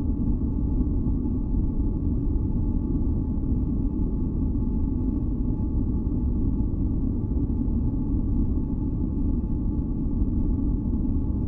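Steady, deep masking noise, weighted toward the low end like a dull rumble rather than a bright hiss, with faint steady tones held above it and no change throughout.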